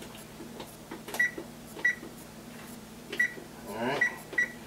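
Kenmore electric range's touchpad control panel beeping as its buttons are pressed to set the oven temperature: five short, high beeps, each with a key click.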